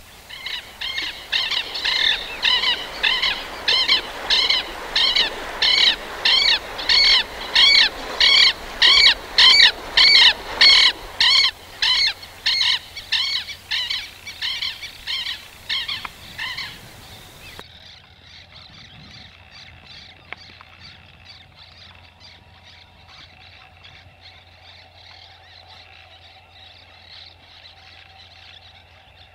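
Southern lapwing (tero) giving its loud, persistent strident call, repeated about twice a second, swelling and then fading. After about seventeen seconds the sound cuts abruptly to a much fainter bed with faint repeated calls.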